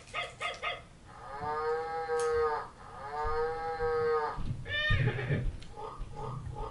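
VTech Sit-to-Stand Learning Walker's electronic speaker playing a recorded cow mooing, two long moos one after the other. A quick rising sound and a few short notes follow near the end.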